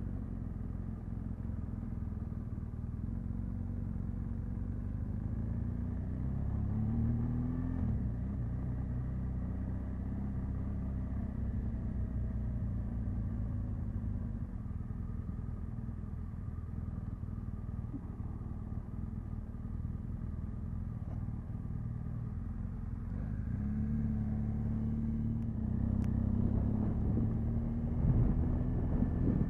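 Motorcycle engine running under a steady low rumble of wind and road noise. The engine note rises as the bike accelerates, once about seven seconds in and again from about twenty-three seconds, and the sound grows louder near the end.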